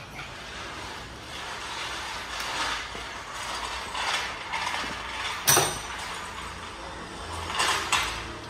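Mechanical ratcheting and rasping of tools at work on a car engine, with a sharp metallic clank about five and a half seconds in and a few more clicks near the end.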